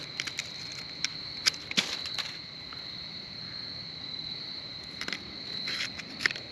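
Steady high-pitched cricket chorus, with scattered sharp clicks and rattles from handling a trail camera and its burst, corroded batteries, a cluster about one and a half to two seconds in and more near the end.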